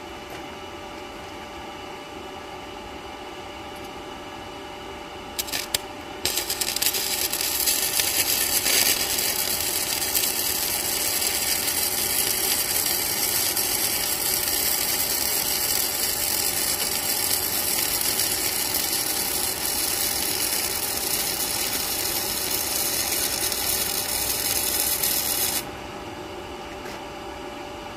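Hitbox HBM200 110 V flux-core welder arc crackling and hissing steadily for about twenty seconds as a bead is run. It sputters briefly as the arc strikes a few seconds in and cuts off abruptly near the end. A steady low hum from the equipment's fan is heard before and after.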